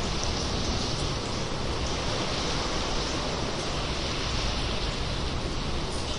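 Sea water washing and echoing inside a sea cave: a steady, even rush of water over a deep low rumble.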